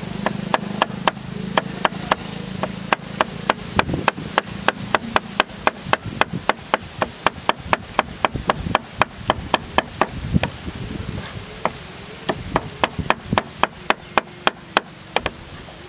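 Cleaver chopping garlic on a round wooden chopping board: rapid, even chops about four a second, with a short break a little after two-thirds of the way through before the chopping resumes.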